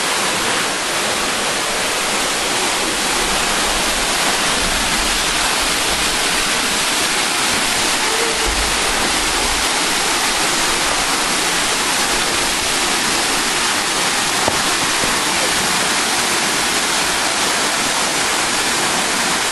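Williamsport Falls, a 90-foot waterfall, pouring onto limestone: a steady, even rush of falling water.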